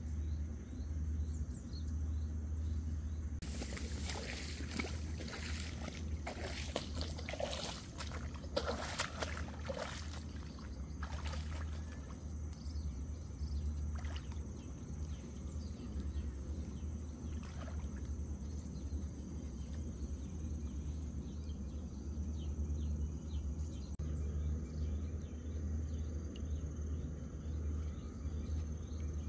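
Water splashing and sloshing in irregular strokes for several seconds, over a steady low hum and a thin, steady insect buzz.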